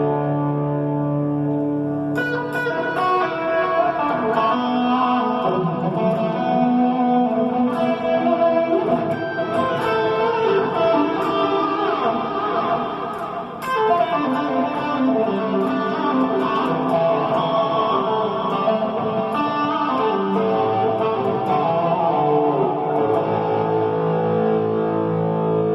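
Telecaster electric guitar being played: a chord rings out, then from about two seconds in a run of picked notes and chords, with a strong fresh strum about halfway through and chords held near the end.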